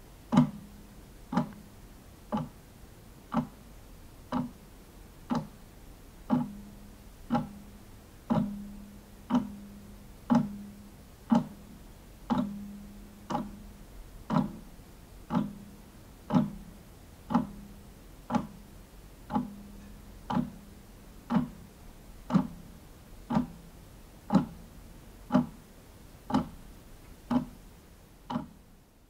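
Clock ticking slowly and evenly, about one tick a second, each tick with a short low ring after it.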